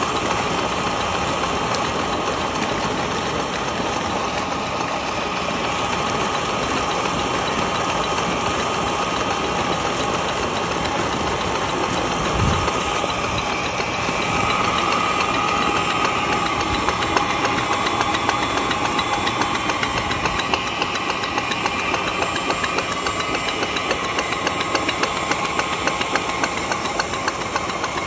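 Water gushing steadily from a solar-powered tube well's outlet pipe into a channel, with the pump running as a steady mechanical hum underneath. A single dull thump comes about halfway through.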